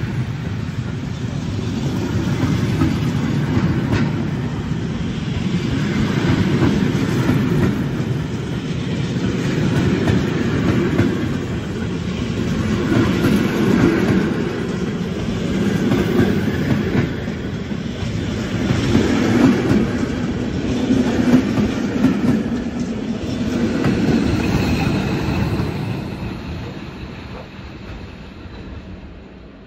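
A train of historic passenger coaches departing and rolling past, its wheels clattering rhythmically over the track joints above a steady rumble. The sound fades near the end as the train draws away.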